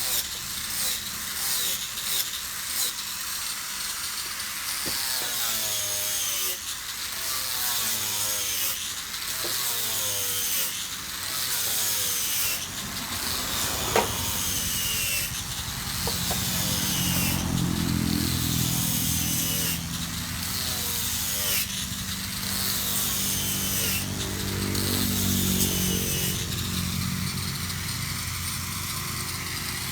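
Wood being sawn in repeated strokes, about one a second, each stroke with a falling rasp. A low hum sits underneath from about halfway through to near the end.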